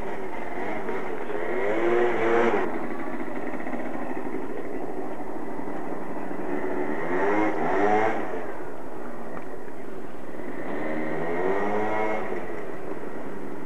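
A motor vehicle engine revving up and down three times, about two, seven and twelve seconds in, over a steady background hiss.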